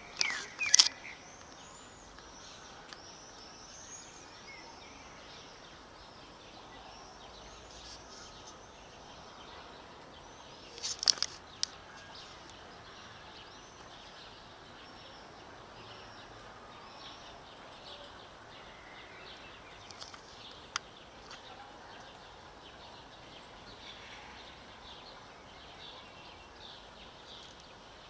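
Outdoor ambience of small birds chirping over a steady background hiss, with a short cluster of sharp clicks about a second in and again around eleven seconds in.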